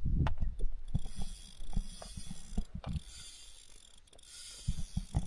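Fishing reel working as a hooked carp is played: irregular ratcheting clicks of the reel's mechanism with handling knocks, and stretches of hiss about a second in and again around three seconds.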